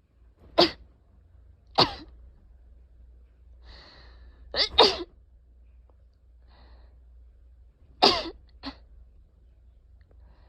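A person sneezing repeatedly: two single sneezes about a second apart, then a sharp breath in and a quick double sneeze near the middle, and another sneeze followed by a smaller one near the end.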